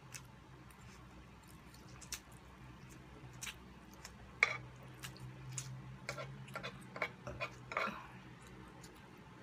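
Close-up eating sounds: chewing and slurping of pancit canton noodles, with scattered small clicks of metal forks on a wooden board. The clicks are sparse at first and come thicker from about halfway through.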